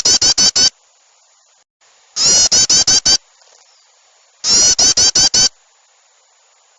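Bird-lure recording of agitated small-bird chatter, mixing yellow-vented bulbul with other small birds. Three loud bursts of rapid, high, repeated calls, each about a second long, come about two seconds apart with the same pattern each time, so the recording is looped.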